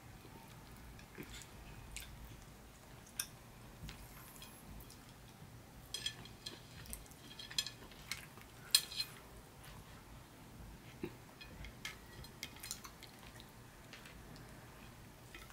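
Fingers with long nails picking through saucy stewed beef on the bone on a ceramic plate: scattered soft clicks and wet squishing, with a run of sharper ticks about six to nine seconds in.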